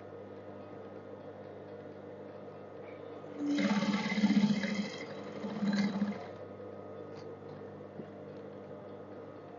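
Electric sewing machine stitching in two short runs: one of about a second and a half starting three and a half seconds in, then a shorter one near six seconds. A steady low hum runs underneath.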